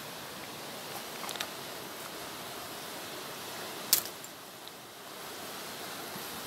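Steady rushing of river water, with a few light clicks and one sharp crack near the middle.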